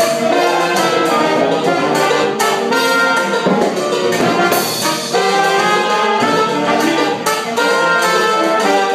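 Trumpet playing close by within a band's brass section, several instruments sounding together, with sharp percussion hits throughout.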